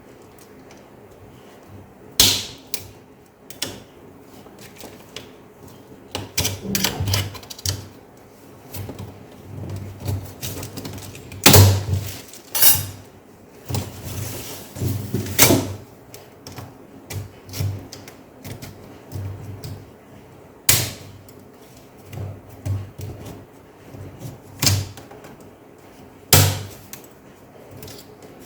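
Sharp plastic clicks, snaps and knocks at irregular intervals as a laptop keyboard is pried free of the locking tabs that hold it in the case, with a few louder snaps standing out.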